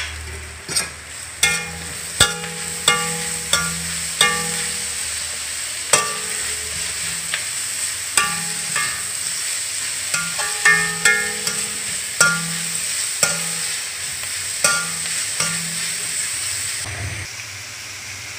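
Sliced onions, ginger, garlic and green chillies sizzling in coconut oil in an aluminium kadai while a metal slotted spoon stirs them, knocking and scraping against the pan at irregular moments, each knock ringing briefly. The sizzle eases a little near the end.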